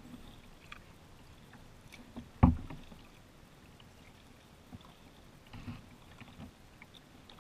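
Kayak paddling on calm water: soft paddle strokes and light clicks, with one loud thump about two and a half seconds in.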